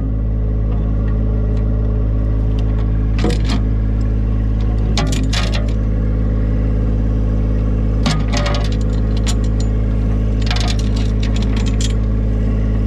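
Tractor engine running steadily, with several sharp metal clinks of a steel chain being handled and hooked around a steel fence post.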